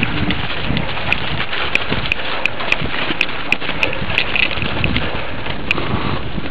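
Wind rushing over the microphone of a small action camcorder on a moving mountain bike, with sharp ticks or rattles about three times a second through the middle stretch.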